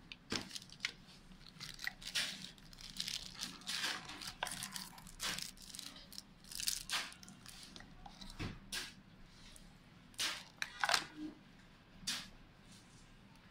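Plastic wrapping and cardboard packaging handled by hand, crinkling and rustling in irregular crackles, with the loudest rustles a little after ten seconds in.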